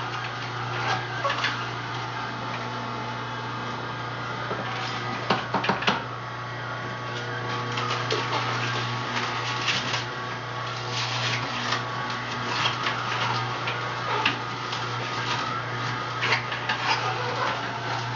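Electric juicer running with a steady motor hum, with irregular crunching and crackling as leafy greens are pushed down its chute and shredded.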